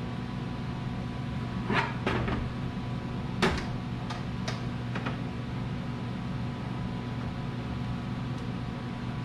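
Objects being handled on a workbench: about five sharp clicks and knocks between two and five seconds in, the loudest about three and a half seconds in, over a steady low hum.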